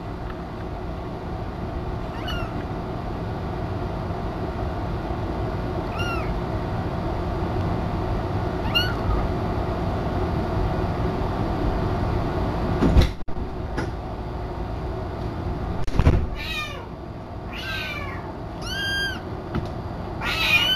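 Kitten mewing: a few faint, short high mews, then a run of louder mews repeated in quick succession over the last few seconds, over a steady background noise. Two sharp thumps come about two-thirds and three-quarters of the way through.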